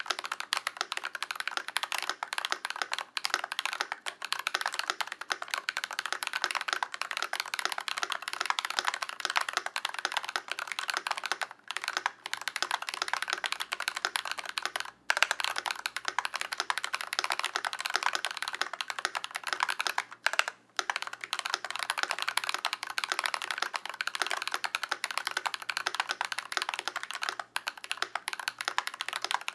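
Fast continuous typing on a Glorious GMMK Pro mechanical keyboard with lubed Glorious Panda tactile switches, a brass plate and PBT keycaps: a dense stream of key clacks with a few brief pauses.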